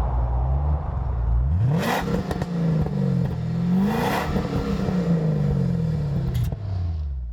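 A V8 car engine running hard under acceleration. Its pitch climbs sharply twice, about two and four seconds in, then falls away steadily.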